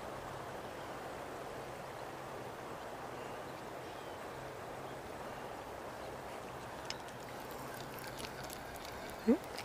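River water flowing steadily, with a few faint clicks late on and a short, loud rising sound just before the end.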